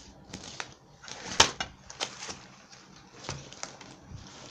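Scattered light taps and clicks of objects being handled, the loudest about one and a half seconds in.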